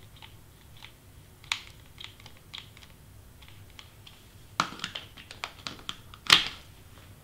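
Light clicks and taps from a hot glue gun and stiff cardstock being handled on a cutting mat. The clicks come sparsely at first, then a quicker run starts about four and a half seconds in, and a sharper knock comes just after six seconds as the glue gun is set down.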